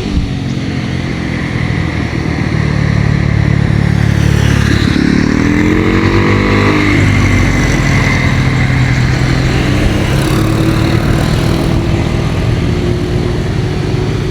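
Road vehicles passing close, their engines running loud and steady. An engine note rises as a vehicle pulls away, about four to seven seconds in and again near ten seconds; no telolet horn sounds.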